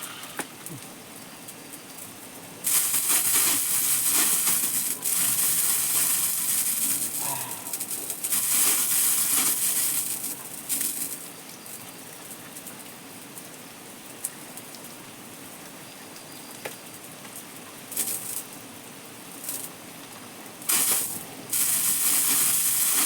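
Water pouring and splashing over a person bathing, in bursts of several seconds with quieter gaps between.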